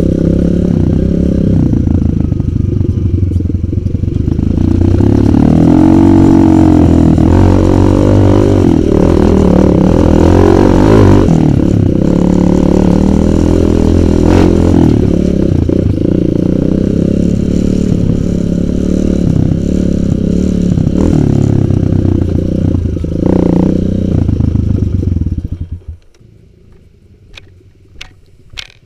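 Kawasaki KLX 150 G dirt bike's single-cylinder four-stroke engine running under way on a rough trail, its pitch swinging up and down with the throttle in the first half. The engine sound cuts off suddenly about 26 seconds in, leaving a low background with a few sharp clicks.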